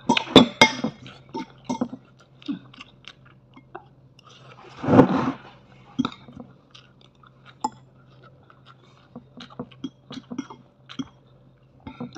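Close-up eating sounds: chewing and mouth noises, with a spoon and fork clicking and scraping on a plate of rice. There is a cluster of sharp clinks in the first second and a louder noisy sound about a second long about five seconds in, under a faint steady low hum.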